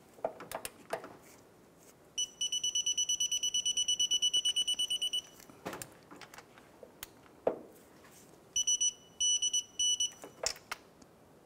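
Cornwell digital torque wrench beeping as the AC compressor mounting nut is tightened to its 43 ft-lb setting. A fast run of high beeps starts about two seconds in and lasts about three seconds, and a shorter run of beeps comes near the end. A few metallic clicks of the wrench on the fastener sound between the runs.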